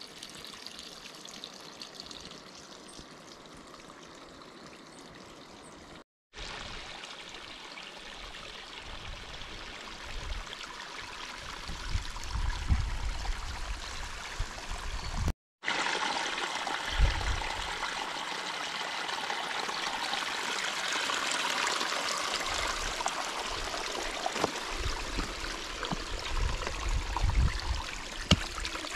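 Small spring-fed stream trickling over stones, louder in the second half, with a few low rumbles. The sound cuts out briefly twice.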